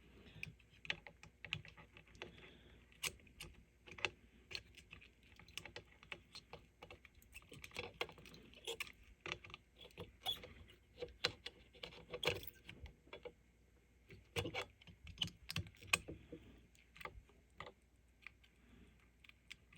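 Small, irregular clicks and taps of hand tools on metal as a wire is worked loose from a terminal inside a tube power supply chassis.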